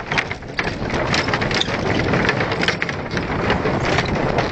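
Bicycle wheels rattling over the loose, uneven boards of a wooden plank bridge: a dense, continuous clatter of knocks.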